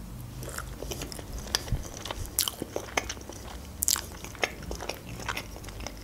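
A person chewing a forkful of baked lavash casserole with cheese and sausage close to the microphone: irregular sharp mouth clicks and bites.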